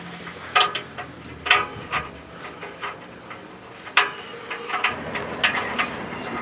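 Metal hand tools and parts clinking against a car's exhaust pipe as a sensor fitting is worked on from underneath: several sharp, irregular clinks, each ringing briefly.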